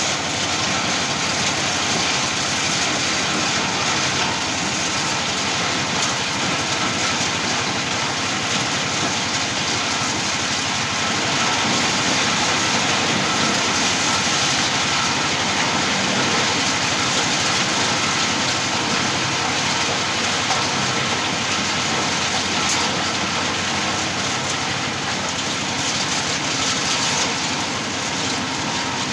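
Areca nut dehusking machine running steadily, its small belt-driven engine and beater rattling as young oven-dried areca nuts are stripped of their husks.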